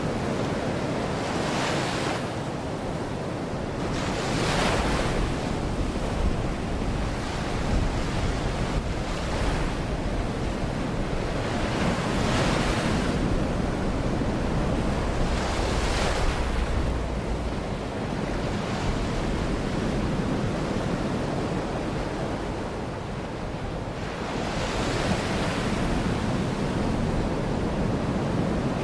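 Baltic Sea surf: small waves break and wash up the shore in swells every few seconds. Wind rumbles on the microphone underneath.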